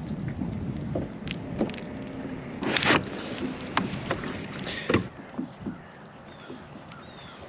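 Handling noises as a crab is hooked for bait aboard a kayak: small clicks and knocks, and a louder scuffle about three seconds in. A steadier wash of water and wind follows from about five seconds.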